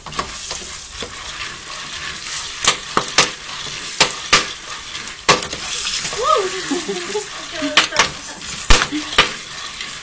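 Dried corn kernels toasting in hot oil in a half-lidded pot: steady sizzling with sharp pops as kernels burst and jump, while a wooden spoon stirs them around the pot.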